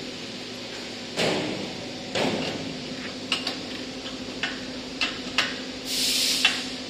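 Steel parts being handled on a welded steel frame's rails: two dull sliding scrapes in the first seconds, then a string of sharp metal clicks and knocks and a short hissing scrape near the end, over a steady low hum.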